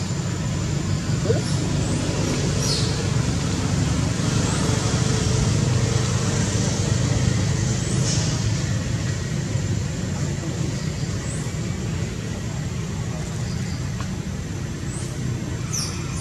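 Steady low rumble of outdoor background noise, with a few short, faint high chirps every few seconds.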